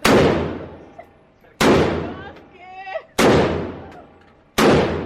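Four gunshots at a shooting range, evenly spaced about a second and a half apart, each followed by a long ringing decay.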